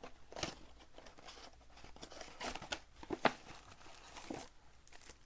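Plastic shrink-wrap on a trading-card box being slit and torn off: a series of short crinkling, tearing scrapes, the sharpest a little past three seconds in.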